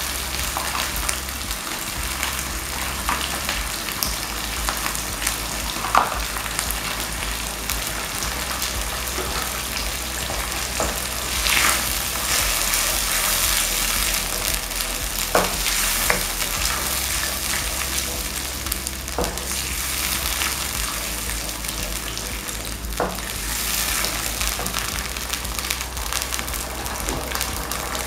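Cream just poured over sautéed mushrooms sizzling in a nonstick frying pan. A wooden spoon stirs and knocks against the pan now and then.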